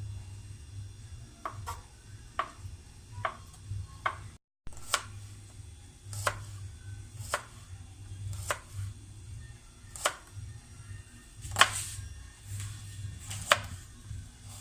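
Kitchen knife chopping food, sharp strokes coming roughly once a second at an uneven pace, with a brief dropout to silence about four seconds in.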